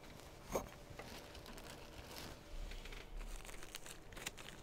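Faint crinkling and rustling of a small object being handled, with scattered small clicks.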